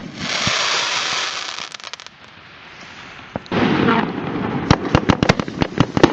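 Firework mine going off in a product demo video: a sharp pop as it fires and a rushing hiss for about two seconds, then from about three and a half seconds in a rapid run of crackling pops and bangs.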